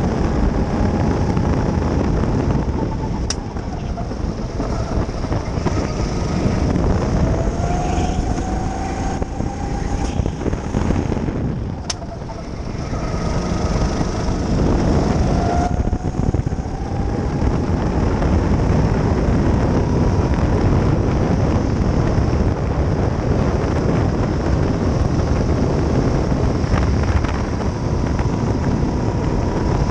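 Sodi rental go-kart running at racing speed, heard from the driver's seat with heavy wind and road rumble on the onboard microphone. Its whine drops as the kart slows about twelve seconds in, then climbs and holds as it speeds up again.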